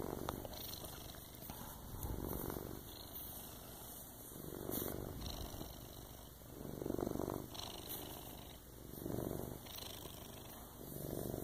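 Domestic cat purring close to the microphone, the purr swelling and fading about every two seconds.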